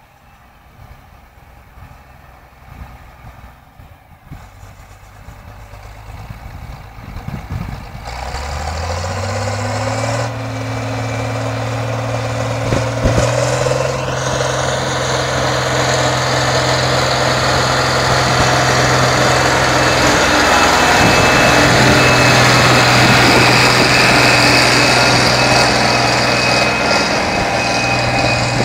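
Landini 12500 tractor's diesel engine working under load, pulling a two-furrow reversible plough through wet ground. It is faint at first; about eight seconds in the engine note rises, then runs steadily and grows loud as the tractor comes close.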